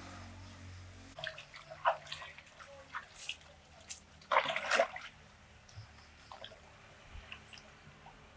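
Irregular splashing and dripping of water, with the loudest cluster of splashes about four and a half seconds in. A low steady hum stops after about a second.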